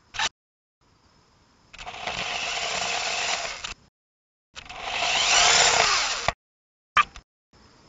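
Jumping Sumo mini robot's electric drive motors and wheels on asphalt, heard through its own onboard microphone: two bursts of whirring, the second with shifting pitch, each cutting in and out abruptly. Short sharp blips come just after the start and near the end.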